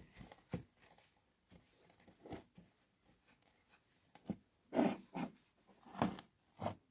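Paper towel rustling and rubbing as an oily piston and connecting rod are wiped and handled on a workbench: a few short rustles and scrapes, louder in the second half.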